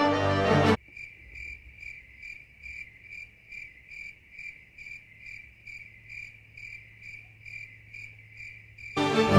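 Music cuts off about a second in, followed by the steady, even chirping of a cricket, about three chirps a second, until music returns near the end.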